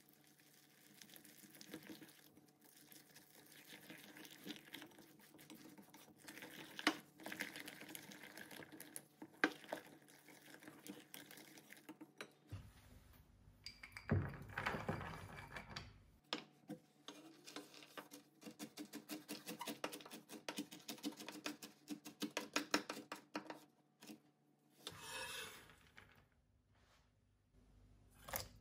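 Wire whisk stirring a thick flour-and-date batter in a glass bowl: light, rapid clicking and scraping of the wires against the glass, broken about halfway through by a louder burst of handling noise.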